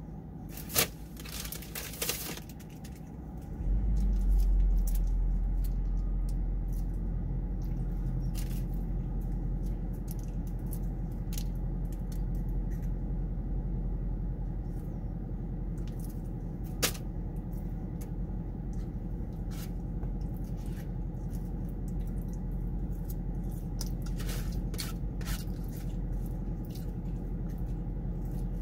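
Eating sounds: a plastic fork scraping and picking at chili cheese fries in a cardboard takeout box, with chewing and scattered small clicks. About four seconds in, a steady low rumble starts and runs under it.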